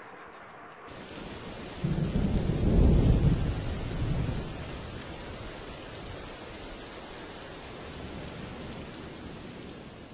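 Steady rain hiss with a roll of thunder that swells about two seconds in and fades over the next few seconds.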